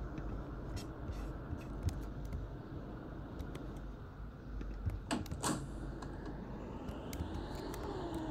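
Cabin of a Mercedes-Benz OC500LE bus on the move: a steady low engine and road rumble with light rattles and clicks from the interior fittings, and two sharper clicks about five seconds in. Near the end a whine starts to rise in pitch.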